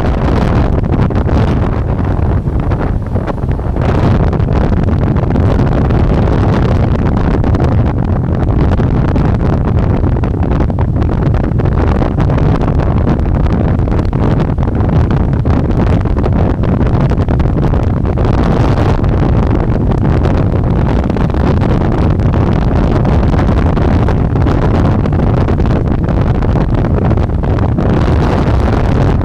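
Loud, steady wind rush buffeting the microphone while riding an electric bike, a low rumbling noise without a clear motor tone.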